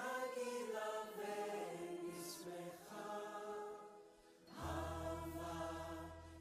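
Background music of choir-like voices singing long, held chant notes, with a brief lull about four seconds in before the voices come back in.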